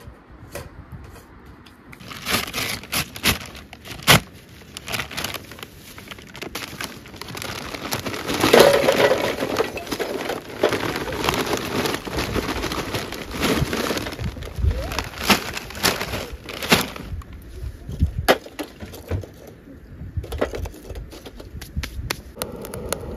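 Lumps of wood charcoal poured from a paper bag into a small folding steel grill, clattering against each other and the metal box in a dense run of clicks and knocks. It starts about two seconds in, is heaviest around eight to ten seconds in, and thins to scattered clicks as the last pieces settle.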